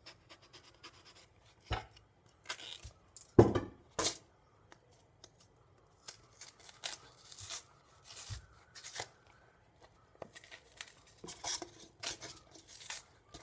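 Green plantain being peeled by hand: a knife scraping and cutting into the tough skin and fingers tearing strips of peel away, heard as irregular scrapes, snaps and tearing noises. One louder knock comes about three and a half seconds in.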